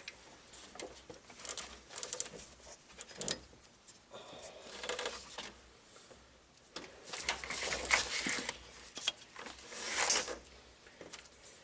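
Serpentine belt being worked back onto the engine pulleys by hand: scattered rubbing, scraping and light clicks, with longer scraping stretches about seven to eight and a half seconds in and again around ten seconds.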